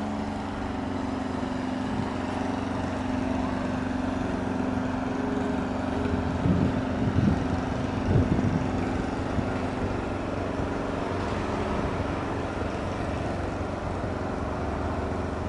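JCB backhoe loader's diesel engine idling with a steady, even hum, with a few brief louder irregular sounds between about six and eight seconds in.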